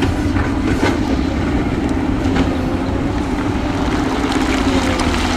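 Diesel engine of a heavy earthmoving machine running steadily under work, with a few faint knocks over it.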